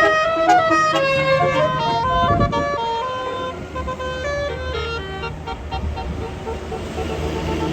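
Tour bus's 'basuri' telolet horn playing a multi-note tune, several notes sounding together and stepping in pitch, fading out after about five seconds, with the bus engine running underneath.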